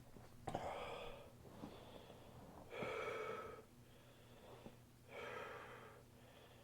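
A man taking three deep, audible breaths, a couple of seconds apart, with a short click about half a second in.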